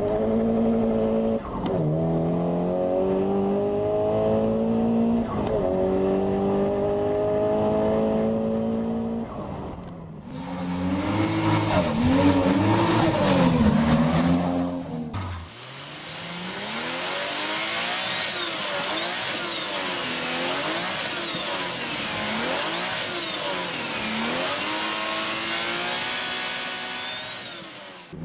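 Turbocharged car engines across three short clips. First an engine accelerating through several gear changes, its pitch climbing and dropping back at each shift. Then engines revved up and down repeatedly.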